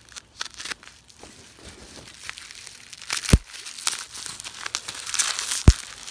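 Plastic bubble wrap being slit with a knife and pulled open by hand, crinkling and rustling, with two sharp snaps, one about halfway through and one near the end.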